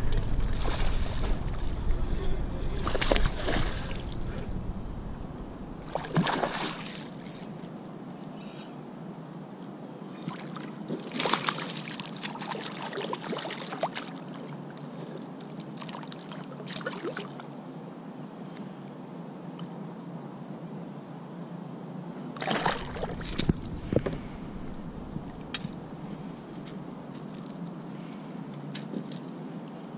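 Water splashing and sloshing around a kayak in short, scattered bursts. Several bursts near the middle come from a hooked largemouth bass thrashing at the surface beside the hull as it is brought in.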